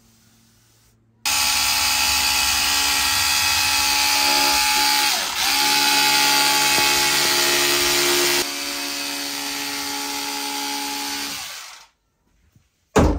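Handheld electric fabric cutter trimming excess carbon-fibre cloth. It switches on about a second in and runs steadily with a whine, with a brief dip around five seconds as it cuts into the cloth, then runs a little quieter for its last few seconds before stopping. A short knock comes near the end.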